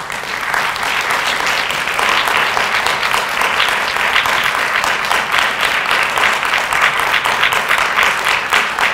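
Audience applauding: dense, steady clapping from many hands, louder than the speech around it.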